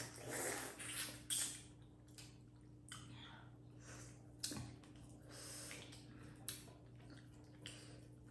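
A person chewing food close to the microphone, with wet mouth sounds and scattered short sharp clicks. A faint steady hum runs underneath.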